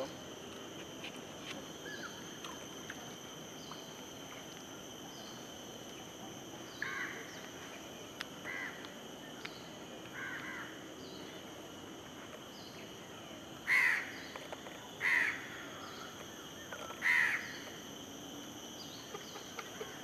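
Chestnut-winged cuckoo giving its loud, harsh call: three softer calls, then three louder ones about a second and a half apart near the end. A steady high-pitched drone runs behind them.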